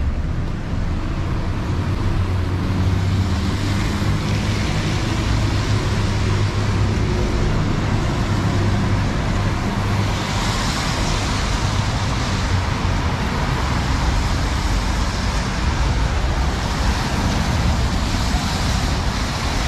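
Steady city road traffic: cars and buses passing on a wet street, a low engine rumble under a tyre hiss that swells about halfway through and again near the end.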